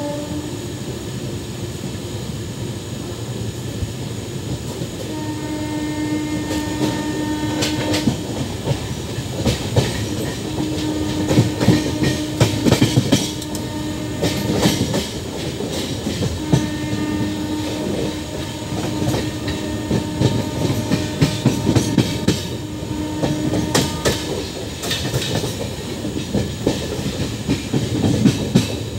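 Passenger express train running, its coach wheels clattering over rail joints and points, the clatter thickening in the second half. A train horn sounds in four long blasts along the way.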